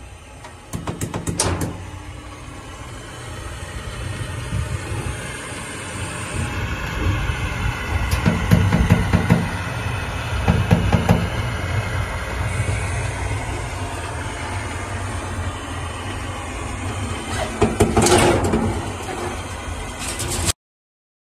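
Portable automatic arc welding carriage running along a horizontal seam on stainless steel water tank panels: a steady hiss and hum of the welding arc and the carriage drive. There is a burst of sharp clicks about a second in and again near the end, and the sound cuts off suddenly.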